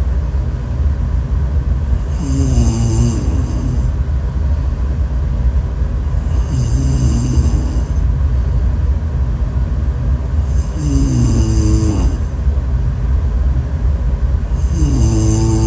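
A sleeping person snoring heavily, one snore roughly every four seconds over a constant deep rumble.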